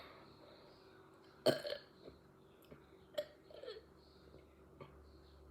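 A girl burping deliberately: one loud, short burp about a second and a half in, followed by a few smaller, quieter throat sounds.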